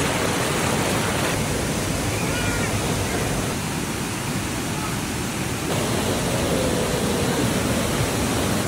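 Rushing water of a shallow, rocky stream pouring over boulders and small cascades, a steady, fairly loud rush that changes slightly in character a few times.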